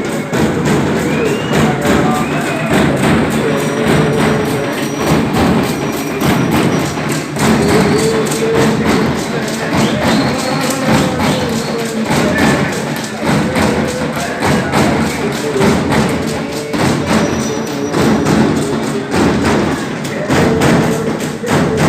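Procession drums beating a fast, unbroken rhythm of thudding strokes, with voices over them, as in a Muharram Taziya procession.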